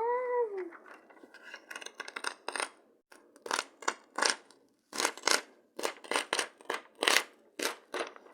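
A sheet of paper being torn out of a notebook: a run of short, sharp ripping strokes, one after another. It is opened by a short rising-and-falling vocal sound.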